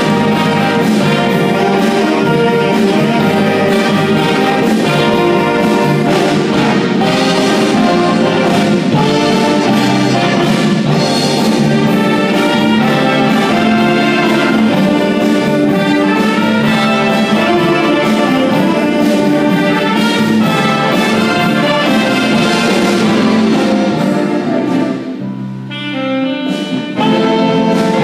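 A band playing music led by brass instruments. It thins briefly to a softer held low note near the end, then the full band comes back in.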